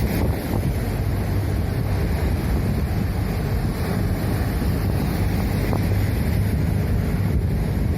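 Strong wind buffeting the microphone with a steady low rumble, over the wash of rough sea waves.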